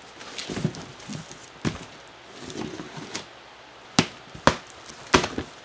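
A large cardboard box being set down, with rustling and a few dull thuds, then three sharp slaps of hands on its top in the last two seconds.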